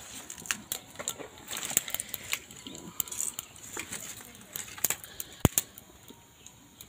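Cumin, mustard and fennel seeds spluttering in hot mustard oil: irregular sharp pops and crackles, with one louder snap about five and a half seconds in.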